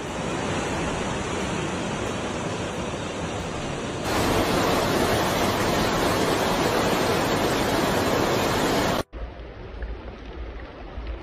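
Rushing floodwater from a swollen, churning river. About four seconds in it changes to a louder, steady rush of water pouring over a dam spillway. Near the end this cuts off suddenly to a much quieter low rumble with faint drips.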